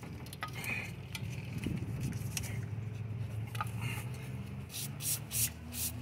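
Several short hissing bursts from an aerosol spray can, clustered near the end, over a low steady hum, with a few light clicks and rubbing sounds from cleaning the intake-port surfaces earlier on.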